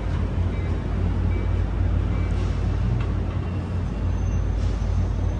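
EMD F59PHI diesel locomotive of a passenger train idling while it stands at the platform: a steady low rumble with a constant hum.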